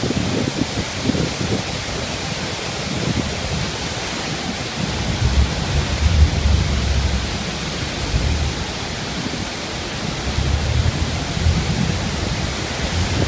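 Steady rushing noise of the Iguazu Falls cascades pouring into the churning river, with deeper rumbling swells about halfway through and again near the end.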